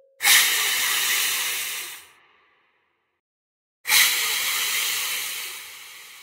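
Two loud bursts of hissing. Each starts suddenly: the first lasts about two seconds and cuts off, and the second, about four seconds in, fades away slowly.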